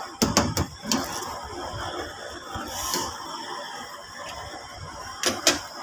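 A spatula knocking against a nonstick frying pan a few times while rice is stirred into boiling stock, then the stock bubbling at a boil, with two more knocks near the end.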